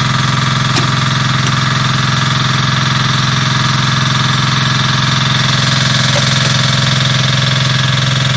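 An engine running steadily at one even speed, a constant drone that does not rise or fall.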